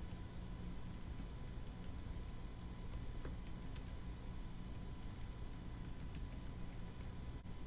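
Low steady background hum with a faint thin tone and scattered soft ticks.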